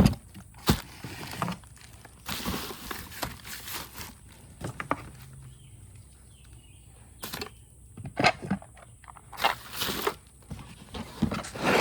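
Irregular rustling, knocks and clicks of objects and packing being handled and moved around in boxes, with short quiet gaps between.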